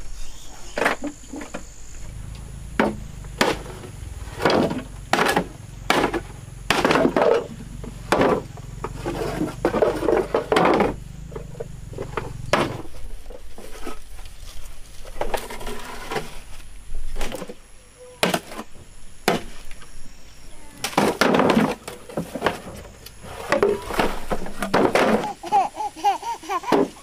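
Repeated sharp knocks, irregular at about one or two a second with short pauses, over a low steady hum that stops about two-thirds of the way through.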